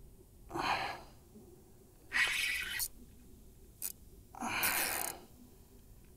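A man breathing hard from the effort of fighting a hooked fish on a bent rod: three loud, breathy huffs a second or two apart, with a short click between the second and third.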